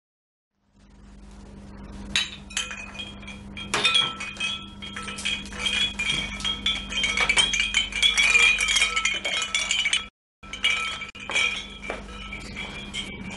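China cups and a teapot clinking against each other and a serving tray as drinks are served, many light clinks with a ringing after them, starting about a second in, over a steady low hum. The sound cuts out briefly near ten seconds in.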